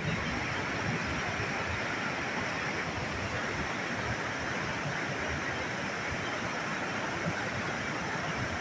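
Steady rushing of fast-flowing water, an even roar without breaks.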